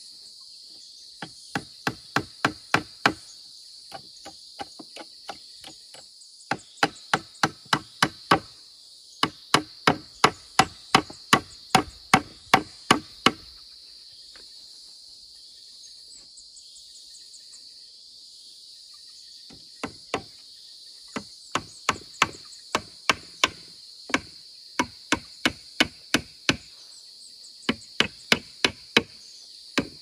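Hammer nailing wooden boards together: runs of sharp blows at about three a second, with a pause of about six seconds in the middle.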